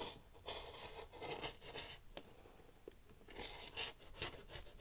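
Fiskars rotary cutter blade rolling along a ruler edge through four layers of t-shirt fabric onto a cutting mat: a scratchy rasping cut heard in two stretches, about half a second in and again a little past three seconds.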